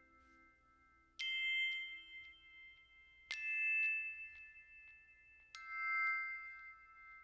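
Three ringing bell-like chime notes, about two seconds apart, each struck sharply and fading slowly, with a faint sustained ring underneath.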